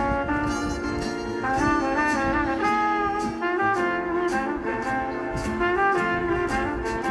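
Background jazz music with a horn melody over a steady beat.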